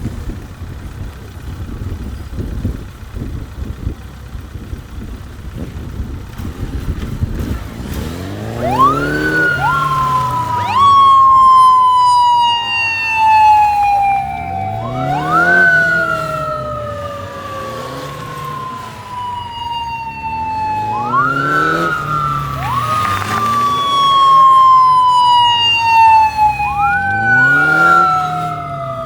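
Low rumble of police motorcycles for the first eight seconds or so, then two or more motorcycle sirens wailing slightly out of step. Each tone rises sharply and then slides slowly down, repeating about every six seconds.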